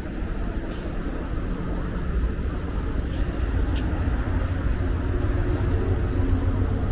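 Busy city street traffic: a steady low rumble of cars driving past, with one vehicle's engine drone a little louder near the end.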